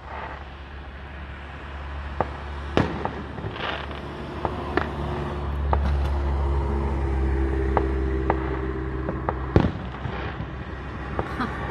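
Fireworks going off: scattered sharp bangs and pops, the two loudest about three seconds and about nine and a half seconds in, over a steady low hum.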